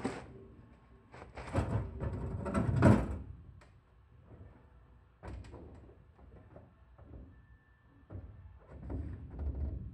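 Scraping and knocking of wood-stove chimney pipe being worked loose and pulled off from the roof, heard from the room below through the ceiling opening. A loud spell of scraping comes about two seconds in, a single knock near the middle, and more knocking and scraping near the end.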